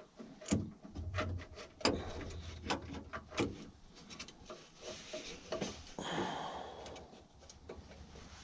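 Irregular clicks, taps and rubbing of hands and tools handling hardware while a carburetor is worked onto its engine mount, with a brief low hum early on and a short rustle about six seconds in.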